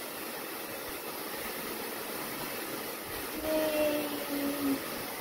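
Steady rushing noise with no rhythm, joined about three and a half seconds in by a short voice sound lasting just over a second.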